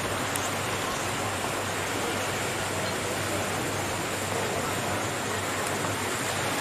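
Steady rushing of water, an even hiss that does not change.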